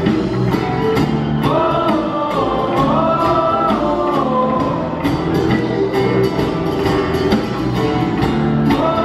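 Live band music: a steady drum beat with electric and acoustic guitars and bass, and a lead melody line carried over it from about a second and a half in.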